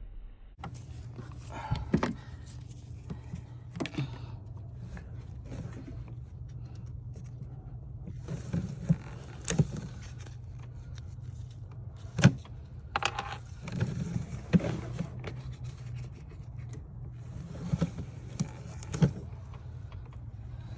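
Scattered clicks, knocks and scraping of hand work on the car, over a steady low hum that starts about half a second in.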